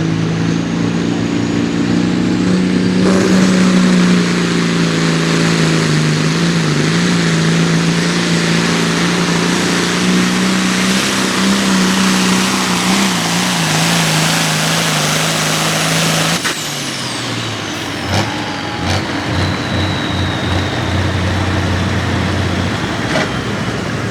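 John Deere hot farm pulling tractor's engine running hard under full load through a pull, getting much louder about three seconds in as it takes off down the track. About two-thirds of the way through the throttle is cut and the engine note falls away to a lower steady idle.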